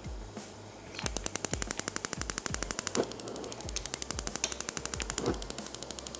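Gas hob's electric spark igniter clicking rapidly and evenly, about ten clicks a second, as a burner is lit under a pan of oil. It starts about a second in, over soft background music with a low beat.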